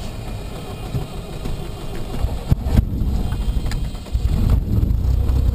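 Cessna 152's Lycoming O-235 four-cylinder engine being started, heard from inside the cockpit: uneven low thumps of the starter cranking it, then about four seconds in it catches and runs on steadily and louder.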